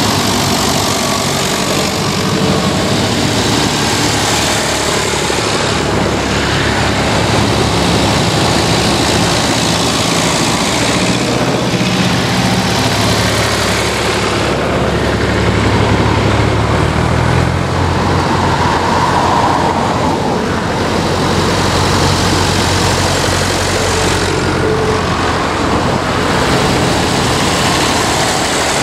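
Vintage tractor engines running as the tractors drive past one after another, with a car going by among them; the engine note changes as each vehicle passes.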